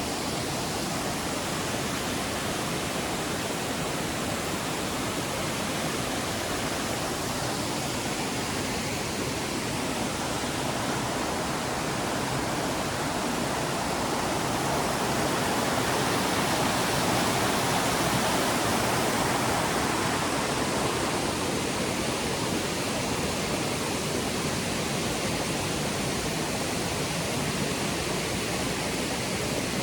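Steady rush of falling water from a jungle waterfall and its cascades, swelling a little louder about halfway through and then easing back.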